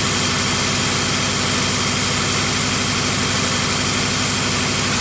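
2000 Honda CR-V's four-cylinder engine idling steadily with an uneven low pulse, during a cylinder-by-cylinder check for the random misfire behind a P1399 code; the miss comes and goes and is later traced to a bad spark plug in cylinder two.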